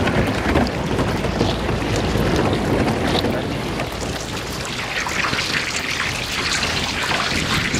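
Thin lake ice cracking and crunching as a small metal boat's bow breaks through it: a dense crackle of many small snaps, sharper from about five seconds in.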